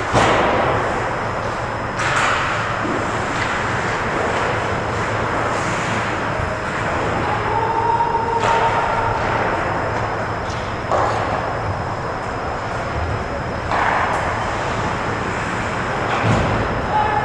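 Ice hockey rink sounds: skates carving and scraping the ice, with a sharp scrape or knock every few seconds, over a steady low hum.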